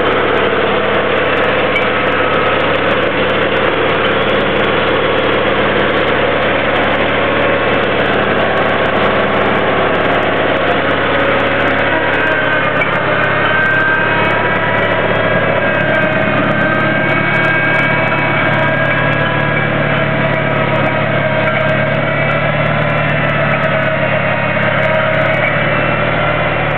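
Small garden tractor engine running steadily, its note shifting a little about halfway through.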